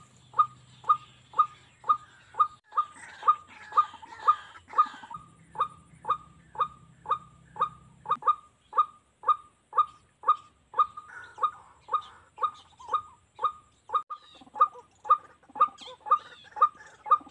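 White-breasted waterhen calling: a steady, unbroken series of short, sharp notes, about two a second.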